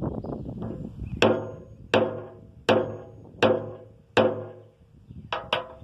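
Claw hammer striking the top of a wooden dowel rod, tamping powdered potassium nitrate and sugar rocket fuel into a PVC engine housing: five evenly spaced ringing knocks about three-quarters of a second apart, then two quicker, lighter taps near the end.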